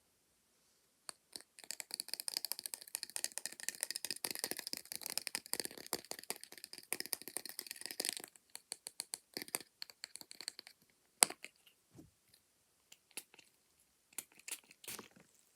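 Fast, dense tapping and rattling clicks close to the microphone for about seven seconds, ASMR-style handling of makeup tools. This is followed by slower, scattered single taps, with one sharp louder tap about 11 seconds in.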